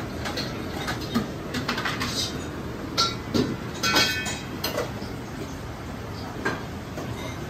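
Restaurant kitchen background: a steady rumble with scattered clicks and clatter of dishes, and a short ringing clink of ceramic about four seconds in.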